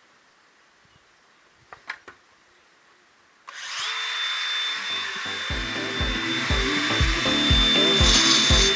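A few faint clicks over near quiet, then about three and a half seconds in a power tool starts with a steady high whine and hiss. Background music with a steady beat of about two a second comes in under it.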